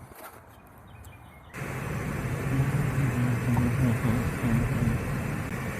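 Fairly quiet at first, then steady car engine and road noise with a low hum cuts in suddenly about a second and a half in.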